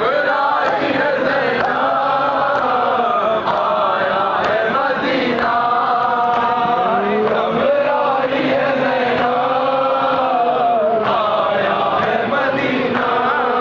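Men's voices chanting a noha, a Shia mourning lament in Urdu, in long drawn-out sung lines that rise and fall slowly.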